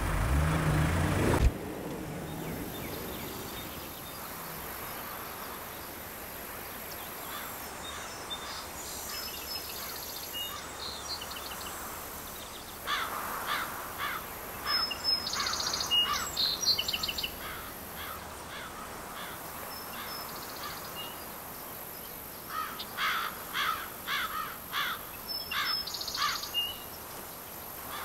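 A car engine runs briefly and cuts off abruptly. Then comes open-air rural ambience with songbirds singing: runs of quick chirping notes about halfway through and again near the end, with occasional high whistles.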